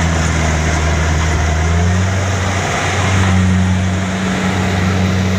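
Diesel engine of a rice combine harvester running steadily with a loud low hum. Its pitch sags briefly about two to three seconds in, then picks back up.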